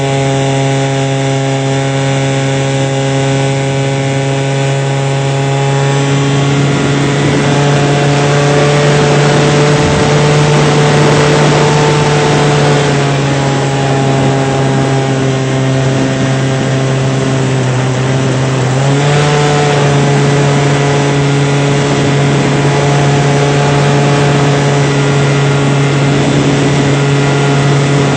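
RC model airplane's motor and propeller heard from on board, a steady buzzing drone. A rush of air swells in the middle, and the pitch sags briefly and then rises again about two-thirds of the way in.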